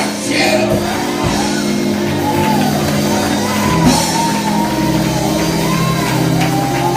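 Church music with long held chords, and a voice shouting and singing over it in repeated rising-and-falling phrases.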